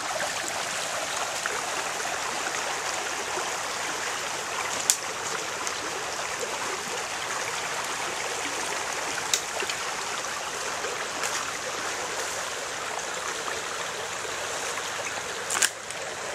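Rain-swollen creek rushing steadily, an even wash of flowing water. Three brief sharp clicks come through it about 5, 9 and 15 seconds in.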